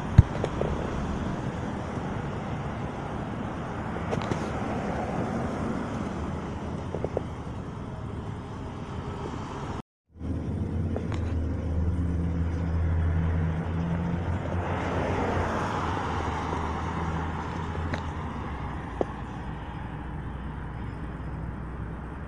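Road traffic: cars passing on the street, each rising and fading, over a steady background of traffic noise, with a low engine hum for a few seconds just after the sound cuts out briefly about ten seconds in.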